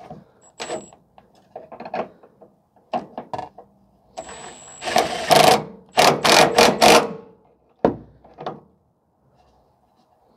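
A power tool running a bolt in on a truck's rear shock mount, in several short trigger bursts, after some clinks of tools on metal.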